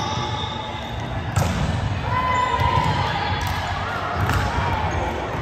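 Indoor ball game: a sharp ball hit about a second and a half in, followed by a couple of lighter knocks and voices.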